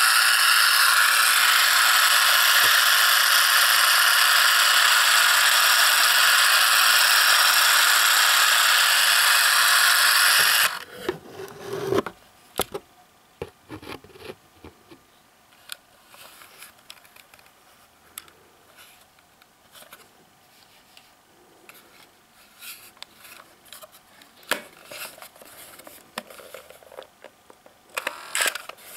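Boots Comet 121 Super 8 camera's DC micromotor film drive running with a steady whir, cutting off suddenly about eleven seconds in. After that come scattered light clicks and knocks from the plastic camera body being handled.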